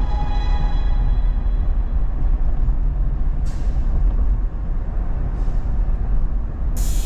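Steady low road and engine rumble of a car driving slowly, with a short hiss about halfway through and a louder one near the end.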